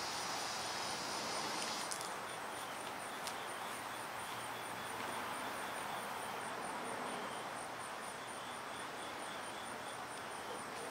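Outdoor ambience: insects chirping in a fast, even pulse, a high-pitched one throughout and a lower one joining about two seconds in, over a steady background hiss.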